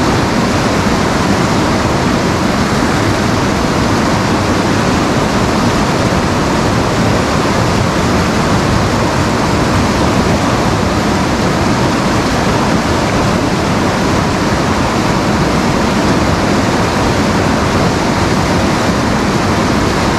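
Loud, steady rush of white water in a river rapid.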